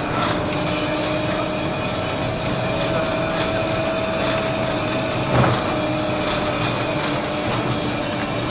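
Inside a moving city bus: steady drive noise with a constant whine, and a single knock about five seconds in.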